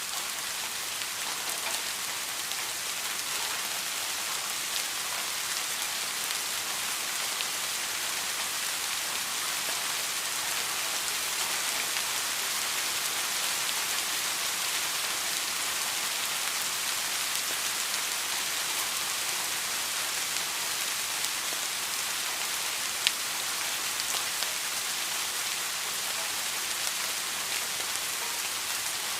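Steady rain falling, an even hiss of many drops, with one sharp tick about 23 seconds in.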